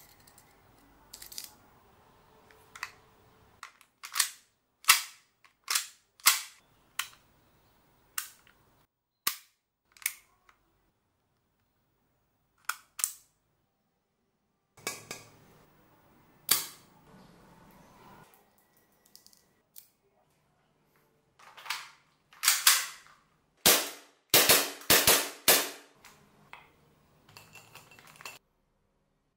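Sharp clicks from handling a KWA-built Umarex MK23 gas blowback airsoft pistol and its magazine, as BBs are pressed into the magazine one at a time. About midway comes a brief hiss and a loud click as the magazine is charged with green gas, and near the end a dense run of sharp clicks as the pistol, fitted with a mock suppressor, is worked.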